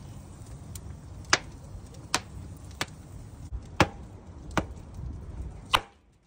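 Wood fire burning: a low steady rumble of flames with sharp pops and cracks from the burning logs, about one a second, the loudest just before the sound cuts off near the end.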